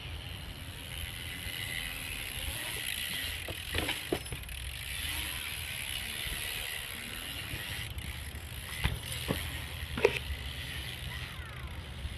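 BMX bike being ridden: the tyres roll over hard ground with a steady rushing noise and a low rumble. Several sharp knocks come from the bike, the loudest about ten seconds in.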